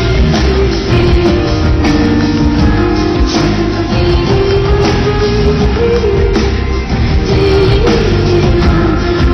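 Live rock music from a band in concert, played loud and continuous with a steady beat.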